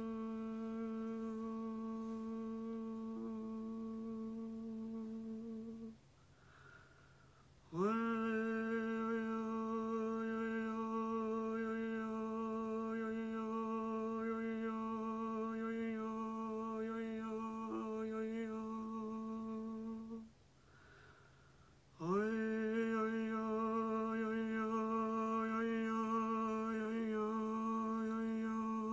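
A woman humming long, steady notes on one pitch. Twice she stops for about two seconds to breathe, then slides back up into the same note.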